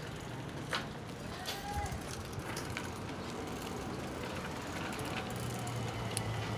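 Bicycles rolling along a street: tyre and wind noise with scattered clicks and ticks from the bikes. A low engine hum from a motor vehicle comes in near the end.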